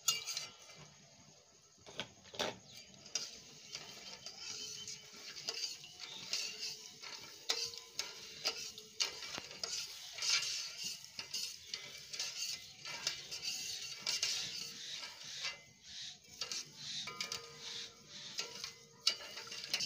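Flat steel spatula stirring sugar syrup in a steel pot, scraping across the metal bottom with small clinks and knocks. The sugar is being dissolved in the water to make the syrup (chashni).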